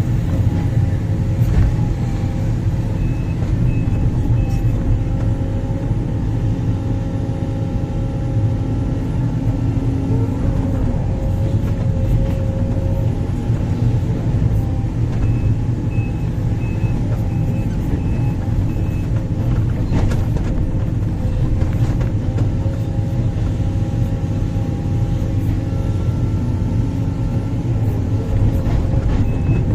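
Sumitomo 490 excavator's diesel engine running steadily at working revs, with a backup alarm beeping in short runs of four or five beeps now and then.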